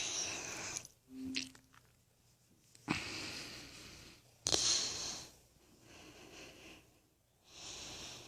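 A person breathing heavily: about six hissing breaths in and out, with a sharp click at the start of two of them, about three and four and a half seconds in.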